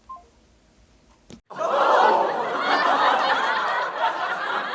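A short beep just as the phone line goes quiet, then, about a second and a half in, loud laughter cuts in suddenly and carries on.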